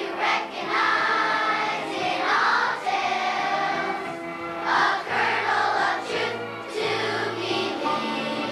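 Children's choir singing together, with sustained low notes of an accompaniment underneath in the second half.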